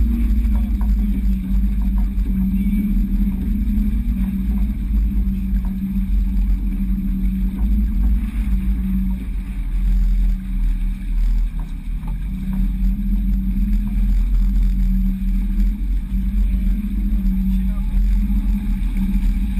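Wind buffeting the microphone with a steady low rumble, over water rushing along the hull of a sailboat heeling under sail.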